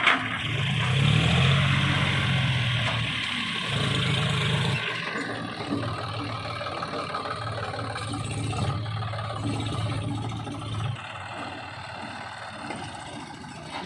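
Heavy diesel engine of earthmoving machinery working, revved hard for the first five seconds, then settling to a steadier, quieter run.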